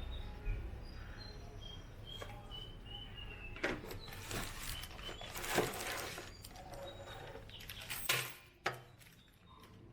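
Small birds chirping in the background with short high notes, one run stepping down in pitch, among rustles and sharp clicks of things being handled.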